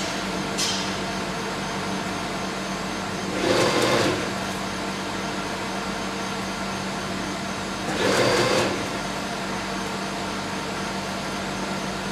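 Salami slicing line with conveyor belts running with a steady machine hum and a constant low tone. A louder rush of noise, under a second long, comes about every four and a half seconds, twice in all.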